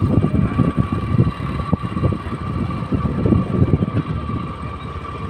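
Motorcycle riding at steady speed, the engine running with a steady whine over heavy, gusty wind buffeting on the microphone.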